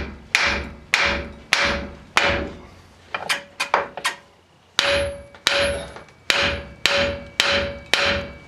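Hammer pounding on the steel steering knuckle of a Toyota 4Runner front axle to free a binding part, a dozen or so blows in a steady rhythm with a metallic ring after each. The blows pause briefly in the middle with a couple of lighter taps, then resume harder.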